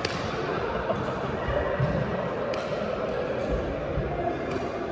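Badminton rackets striking a shuttlecock in a rally: sharp cracks, one at the start and three more about a second apart in the second half, over a steady background of voices.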